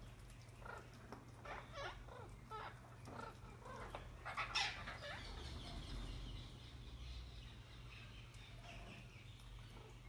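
A flock of green parakeets calling: a run of short chirps and squawks, with one louder harsh squawk about four and a half seconds in, then fainter calls.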